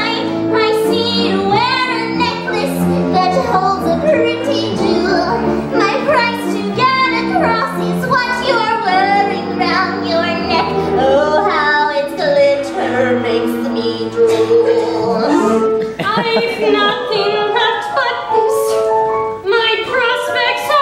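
Female voices singing a musical-theatre song over instrumental accompaniment.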